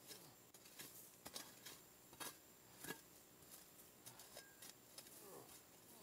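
Faint crunches and scrapes of a small spade blade chopping into forest soil, a series of short sharp clicks about half a second to a second apart.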